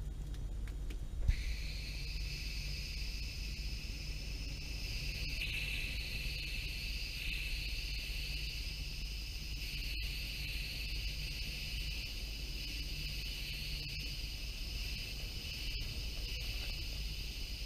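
A steady, high-pitched insect-like drone that starts abruptly about a second in, just after a soft thump, over a low hum.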